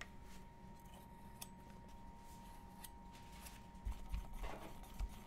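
Silicone spatula scraping and knocking against a stainless steel mixing bowl as meringue is stirred together with food colouring, over a faint steady hum. A few light clicks at first, then louder knocks and scraping about four seconds in.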